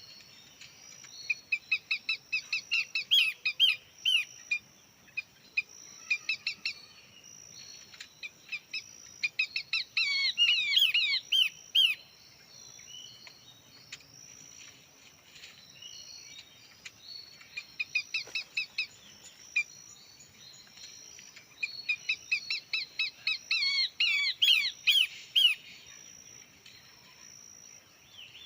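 Small birds calling in three bouts of rapid, repeated chirps, with quieter gaps between them. A thin, steady high-pitched tone runs underneath.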